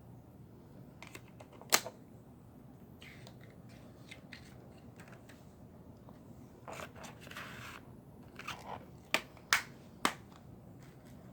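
Handling of a plastic Blu-ray/DVD case: a sharp click about two seconds in, a short rustle around seven seconds, then three sharp clicks near the end.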